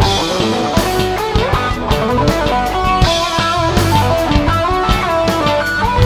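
Background rock music led by guitar, with drums keeping a steady beat.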